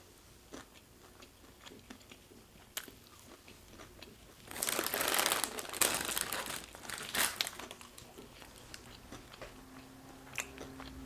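Crunchy fried food bitten and chewed close to the microphone: soft chewing clicks, then a loud stretch of crunching about four and a half seconds in, easing back to quieter chewing.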